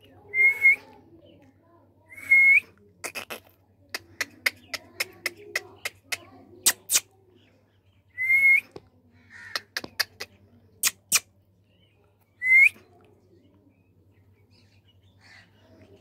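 Indian ringneck parakeet giving four short whistles, each flicking upward in pitch at the end, spaced a few seconds apart. Many sharp clicks fall between the whistles.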